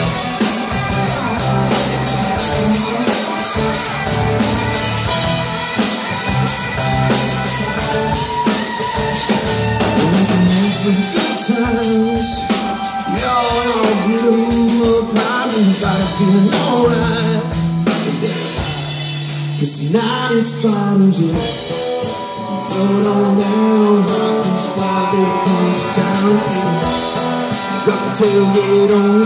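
Live rock band playing a song: electric guitars and a drum kit, with a man singing lead over them.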